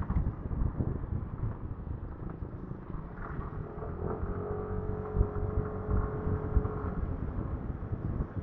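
Riding noise from a Vespa scooter in busy road traffic, with low wind rumble on the microphone. About four seconds in, a steady pitched tone joins for about three seconds.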